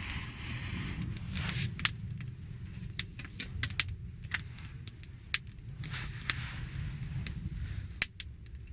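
Wood campfire crackling, with many sharp, irregular pops and snaps over a low steady rumble.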